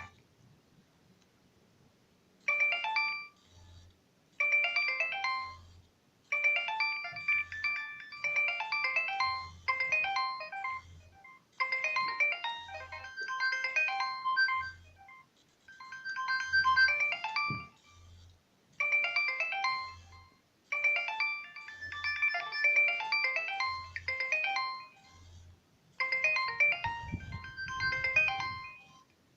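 Nokia 3100b mobile phone playing a ringtone through its loudspeaker. The bright electronic tune starts about two and a half seconds in, comes in short phrases with brief gaps and a soft low beat at regular intervals, and stops just before the end.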